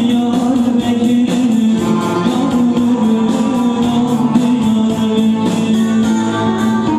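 A man singing with a bağlama (long-necked Turkish lute) played with fast, even plectrum strokes.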